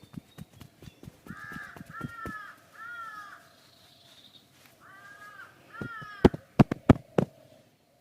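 A crow cawing five times, three calls then two more, over rapid, even hand tapping of a massage that stops about two seconds in. Near the end come four loud, sharp smacks, the loudest sounds here.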